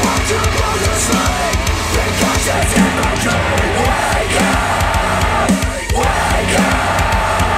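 Loud rock music played through hi-fi bookshelf speakers driven by an Audiolab 6000A integrated amplifier, the Polk Audio R200 pair giving way partway through to the KEF Q350 pair.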